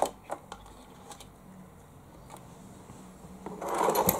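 Light clicks and taps of wires, plugs and small parts being handled on a workbench, then a louder rustling scrape near the end.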